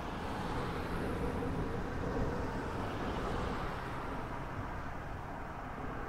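Cars driving past on a street, a steady low rumble whose hiss swells and fades through the first half.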